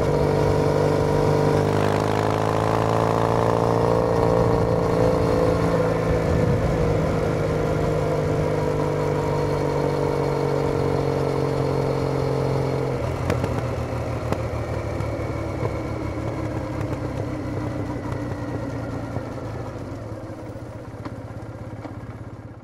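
A Triumph Bonneville T214's parallel-twin engine through its aftermarket TOGA exhaust, heard from the motorcycle while riding at a steady pace. About thirteen seconds in, the engine note falls away to a quieter rushing sound, and it fades out at the end.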